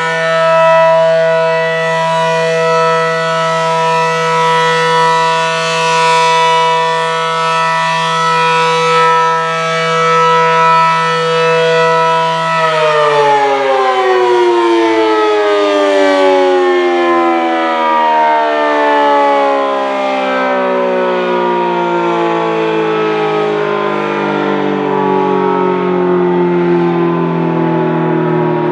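Low-toned ACA Allertor rotating siren sounding a steady chord of tones. About 12 seconds in, the pitch begins to fall slowly as the siren winds down at the end of its alert.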